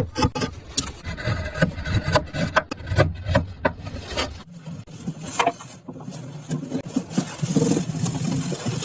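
Wood being worked by hand with repeated short scraping strokes. The sound changes about four and a half seconds in and turns to a steadier hiss near the end.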